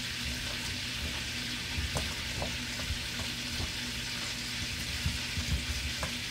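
Margarine sizzling steadily in a frying pan on the stove, with a few light clicks and knocks from hands mixing seasoned chicken pieces in a metal bowl.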